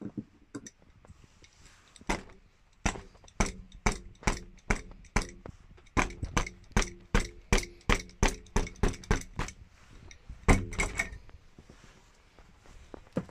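Metal adjustable spanner striking a taut, inflated vinyl air mattress over and over: a run of sharp hits, about two or three a second, starting about two seconds in and stopping at about eleven seconds. The loudest hit comes near the end.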